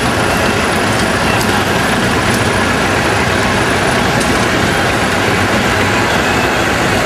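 Farm tractor engine running steadily as the tractor tows a loaded hay wagon past, a dense, even rumble at constant loudness.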